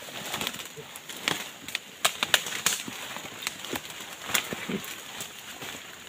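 Dry twigs, branches and leaves crackling and snapping irregularly as someone pushes on foot through dense, tangled undergrowth.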